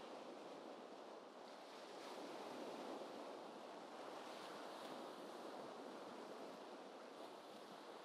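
Faint, gentle ocean waves: a steady soft wash of surf that swells slightly a couple of times.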